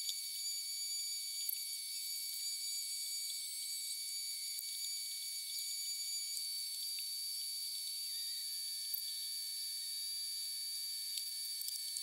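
Steady high-pitched whine made of several thin tones over a faint hiss; the lowest tone drops slightly in pitch about eight seconds in.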